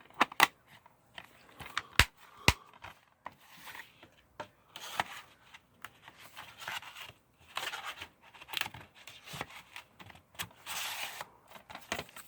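Plastic DVD case and its contents being handled: several sharp clicks and snaps, the loudest about two seconds in, between stretches of scraping and rustling.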